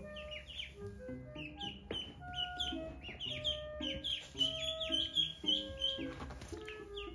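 Ducklings peeping: many short, high, falling chirps in quick succession, busiest and loudest in the middle, over background music with held notes.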